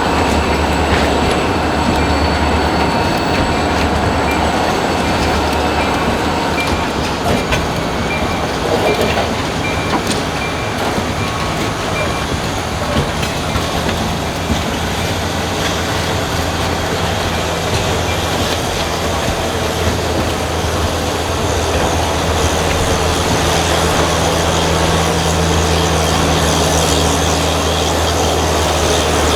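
Freight train rolling by, led by an EMD GP40 diesel locomotive: a steady low engine drone under the continuous rumble and clatter of wheels on the rails.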